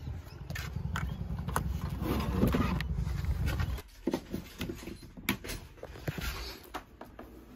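A petrol pressure washer's small single-cylinder engine running with a steady low pulse, cutting off suddenly about four seconds in. After it come a few light clicks and knocks as a plug is pushed into a power socket.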